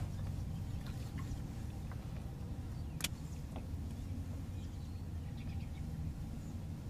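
A low, steady hum from a small motor, with a single sharp click about three seconds in.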